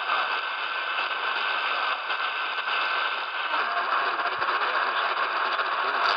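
Medium-wave AM reception from a Tecsun portable radio's speaker: steady hiss and static with only a weak station faintly underneath. The sound changes partway through, and there is a short click near the end as the tuning moves from 1440 to 1460 kHz.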